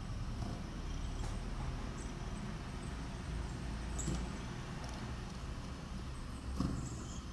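Small birds chirping faintly in short high calls, played through the computer's speakers from a bird-feeder video, over a low steady rumble. There are a couple of soft knocks, one about four seconds in and one near the end.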